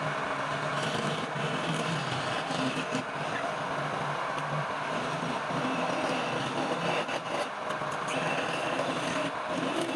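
Wood lathe running steadily, its motor humming under an even hiss of a tool cutting the spinning workpiece.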